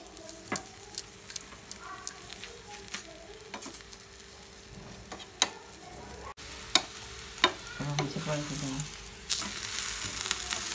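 Oil sizzling on a hot tawa under an aloo paratha, with many light clicks and scrapes of a metal spatula spreading the oil and pressing on the pan. The sizzle gets clearly louder about nine seconds in, after the paratha is turned over.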